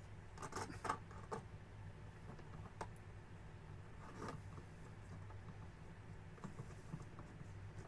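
Faint clicks and soft handling noises of a plastic action figure being handled and posed, with a cluster of clicks in the first second and a half and a sharper single click about three seconds in, over a low steady hum.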